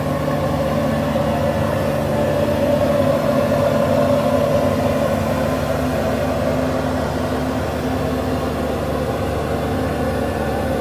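Steady cabin drone inside a Boeing 747-400, a constant hum of aircraft machinery and air systems with several unchanging tones.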